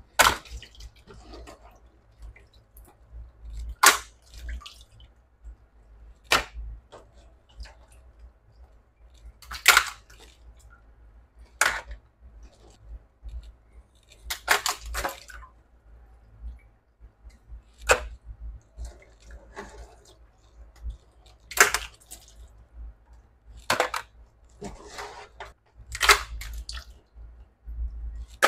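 Crab shells cracking as the backs are popped off live crabs: about ten sharp snaps a few seconds apart, with softer wet handling sounds in a steel sink between them.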